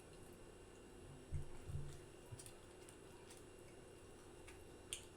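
Quiet chewing and lip smacking while eating, with a few sharp wet mouth clicks spread through and a couple of soft low sounds in the middle.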